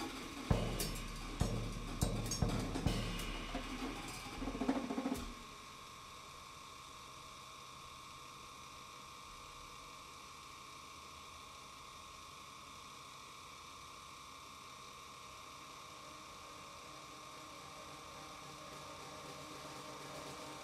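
Drum kit played freely, with scattered snare, bass-drum and cymbal strikes that stop suddenly about five seconds in. After that a steady electrical hum from the amplification carries on alone.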